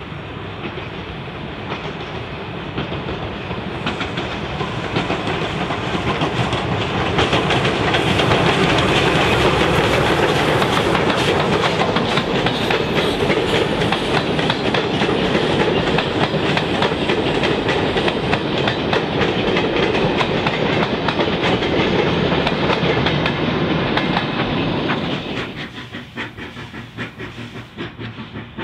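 NSWGR 32 class 4-6-0 steam locomotive 3237 hauling its train past, with the clickety-clack of the carriage wheels over the rail joints. It builds up over the first several seconds, holds loud, then drops sharply about 25 seconds in to a quieter, pulsing rhythm.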